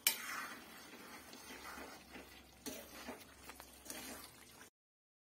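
Jackfruit curry simmering softly in an aluminium kadhai, with a ladle clicking against the pan a few times as it is stirred; the sound cuts off abruptly near the end.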